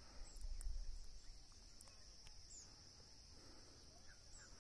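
Faint, steady high-pitched drone of insects, with a soft low rumble in the first second.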